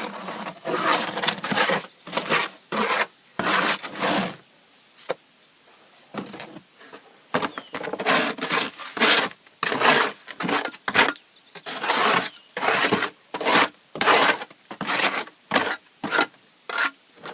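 Repeated gritty scraping strokes of a tool scooping and working concrete fill for concrete-block cores. There is a cluster of strokes at first, a short lull, then a steady run of about one to two strokes a second.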